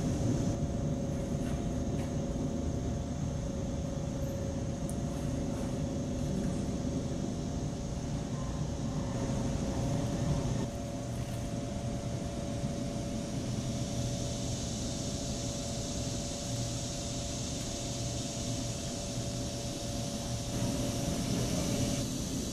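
A steady low rumble with a constant mechanical hum, like distant machinery or traffic. It dips slightly about halfway through.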